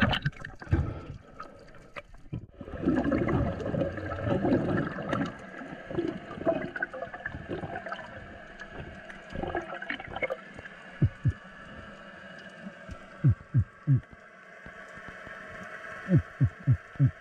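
Underwater water noise on a diving camera: bubbling and gurgling that is busiest in the first few seconds and then settles to a steady wash. In the second half there are several short, low thumps: a pair at about 11 seconds, three quick ones at about 13 to 14 seconds and four near the end.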